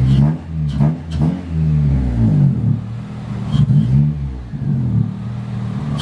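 9th-gen Honda Civic Si engine running at low speed, its pitch rising and falling with light throttle changes, with a few sharp clicks.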